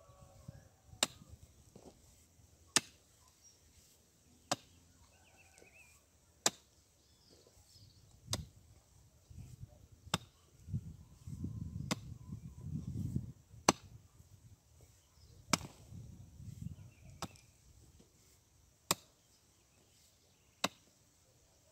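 Chibanca (heavy pick mattock) striking hard, stony ground, a sharp blow about every two seconds, some dozen in all. A low rumble comes between some blows in the middle.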